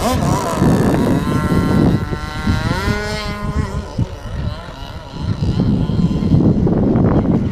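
Zenoah two-stroke gas engine of a 1/5-scale RC boat running on the water, its pitch rising and then falling a couple of seconds in.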